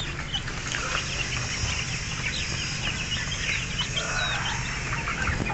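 A pen of Brahma chicks peeping, many short high cheeps overlapping without pause, over a steady low hum.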